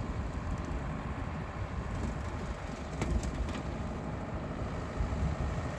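Heavy land-clearing machine running steadily, a low engine rumble with a faint steady whine, as it drives over and flattens yucca and creosote.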